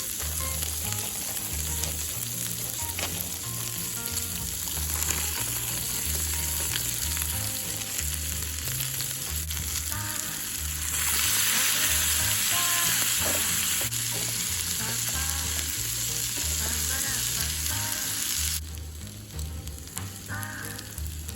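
Food sizzling on a hot iron griddle. The sizzle grows louder about halfway through and drops off sharply shortly before the end.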